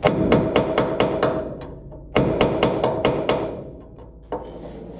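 Small 16-ounce household hammer striking steel, driving a press-tight rivet out of a leaf spring hanger: about eight quick ringing blows, a short pause, about six more, and a single last blow near the end.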